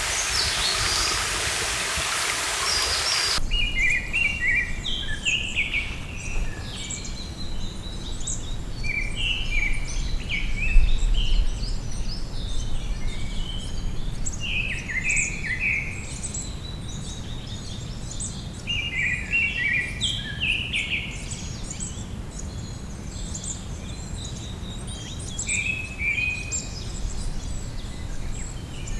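Rushing stream water for the first few seconds, cut off suddenly, then several songbirds singing and chirping in short, often descending phrases, over a low steady rumble.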